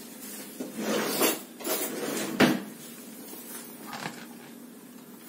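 Cutlery clattering as a spoon is fetched from a kitchen drawer, which shuts with a sharp knock about two and a half seconds in, the loudest sound. Near the end there is a faint scrape as the spoon goes into a plastic tub of sugar.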